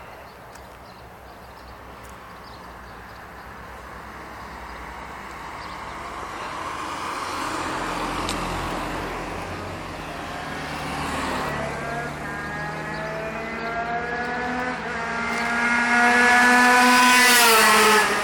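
Tuned two-stroke HM moped engine, running a G.T. TPR 76 kit with a Mikuni TM 24 carburettor and a Yasuni R3 expansion exhaust, screaming at high revs as it accelerates in, its pitch rising steadily and then dropping sharply as it passes near the end. A quieter vehicle goes by earlier.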